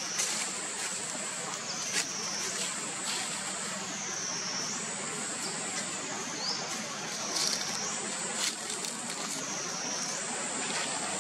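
High-pitched insect drone that dips in pitch and climbs back up every few seconds, over a steady outdoor hiss, with a few faint clicks.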